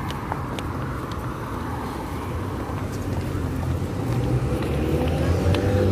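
Road traffic rumble with a vehicle engine running, growing louder over the last two seconds, and a few faint clicks.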